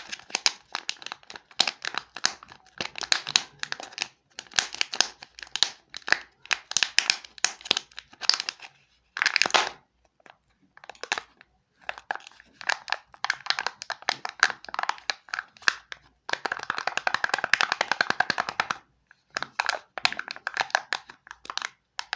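Plastic candy packaging being handled and torn open by hand: bursts of crinkling and tearing with sharp cracks and clicks, broken by short pauses, and one long unbroken crinkle near the end.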